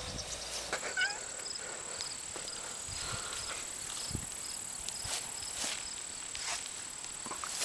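Outdoor garden sounds: a steady high insect drone with a short high chirp repeating about three times a second, a brief bird-like whistle about a second in, and scattered soft knocks and footsteps.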